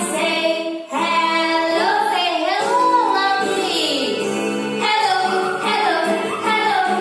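A children's action song playing, with sung vocals over backing music.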